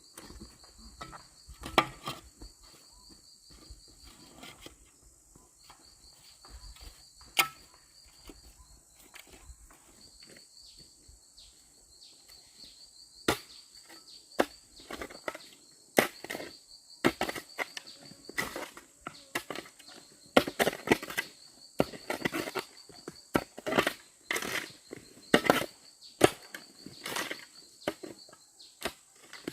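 Insects trill steadily at a high pitch, with short breaks. Over them come irregular sharp snaps and crackles, sparse at first and coming thick and fast through the second half.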